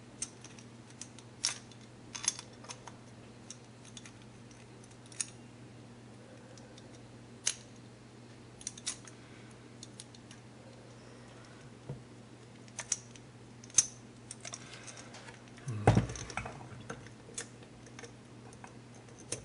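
Small metal parts of a 1984 Honda Magna carburetor clicking and tapping irregularly as the choke plunger and its spring are worked by hand into the carburetor body, with one heavier knock about 16 seconds in. A steady low hum runs underneath.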